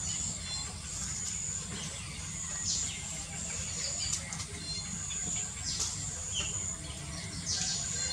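Outdoor ambience: a steady high-pitched insect drone with birds chirping a few times over it.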